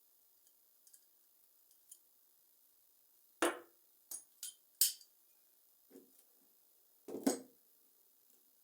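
A handful of sharp clinks and knocks of hard objects being handled and set down, about six in all, the loudest about three and a half seconds in and again just past seven seconds.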